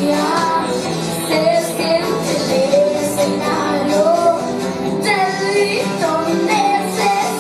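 A young girl singing a song into a microphone over a pre-recorded backing track.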